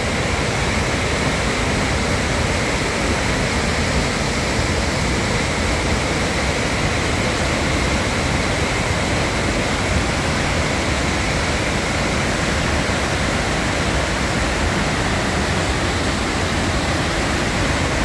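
River water pouring over a waterfall and whitewater rapids: a loud, steady rushing that does not change.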